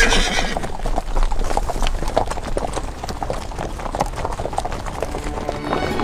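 Hooves of a group of cavalry horses clopping and stamping irregularly on a dirt track, with a horse whinnying at the very start.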